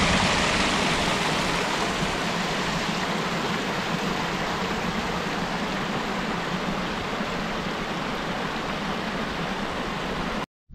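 Steady, even rushing noise with no pitch or rhythm, loudest in the first second and then easing slightly.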